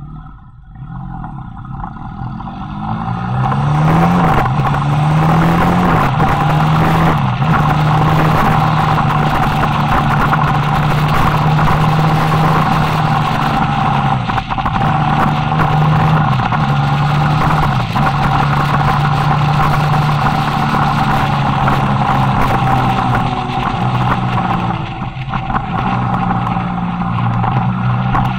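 BMW F800R parallel-twin motorcycle engine under way, its revs and loudness rising over the first few seconds, then running fairly steadily with brief dips now and then. A steady rush of wind and road noise on the onboard microphone runs under it.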